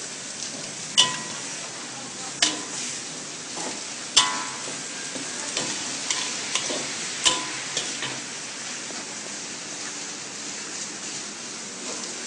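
Flat rice noodles for char kway teow sizzling as they fry in a hot pan, stirred with a metal utensil that clanks against the pan four times, sharply and with a short ring, about one, two and a half, four and seven seconds in, with lighter scraping taps between.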